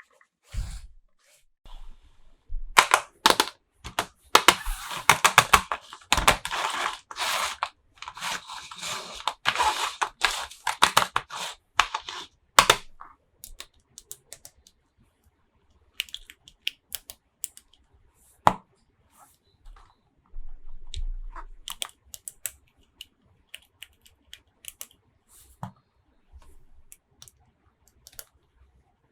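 Toy packaging being opened by hand: a dense spell of plastic crinkling and tearing, then scattered light clicks and taps of small plastic pieces being handled.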